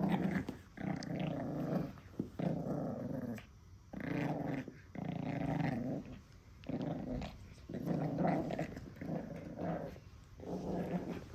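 Pekingese puppy growling in a string of about ten short growls with brief pauses between them, play-growling over a stuffed monkey toy that it is mouthing.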